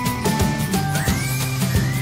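Background music with a steady beat and a high melody line that holds notes and glides up about a second in.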